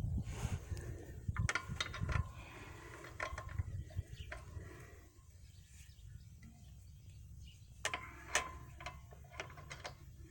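Scattered metallic clinks and knocks of hand tools and parts being handled during wheel refitting, some ringing briefly. They come in two clusters, one early and one near the end, with a quieter stretch between.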